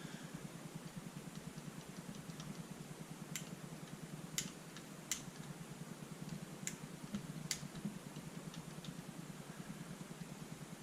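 A handful of sharp, light clicks, spread over several seconds, from small parts of a disassembled paintball marker being handled. A steady low hum runs underneath.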